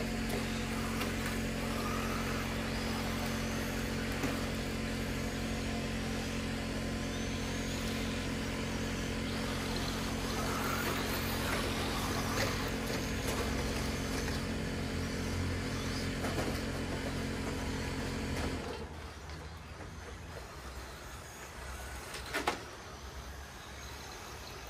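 Electric RC rally cars running on a dirt track, their motors whining faintly up and down, over a steady mechanical hum that cuts off suddenly about 18 seconds in. A single sharp knock comes a few seconds before the end.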